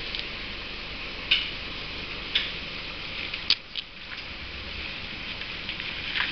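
Off-road 4x4 crawling slowly down a rocky dirt trail: a steady hiss with a few sharp cracks, about a second apart, of stones under the tyres, the engine only faint.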